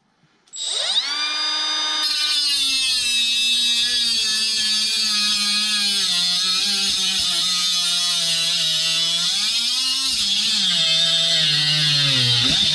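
Milwaukee M12 FUEL 3-inch cut-off tool spinning up about half a second in and running at full speed. A grinding hiss joins about two seconds in, and the motor's pitch wavers and drops toward the end.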